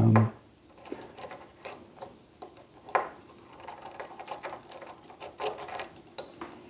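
Scattered light metallic clicks and taps of small brass parts of a Rosengrens disc detainer lock being handled with a tool. A few clicks carry a brief high ring, the loudest near the end.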